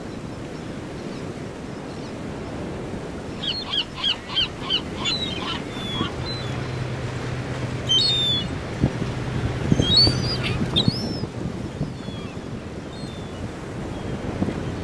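Gulls calling: a quick run of about six short, high calls, then a few single calls, over a steady background of wind and water. A low, steady hum runs through the middle.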